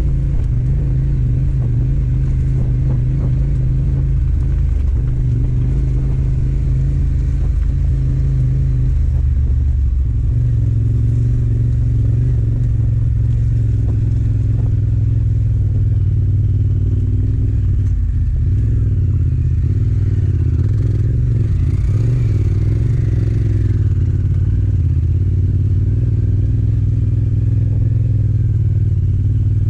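Yamaha Ténéré 700's parallel-twin engine running as the motorcycle is ridden offroad, its note shifting with the throttle a few times.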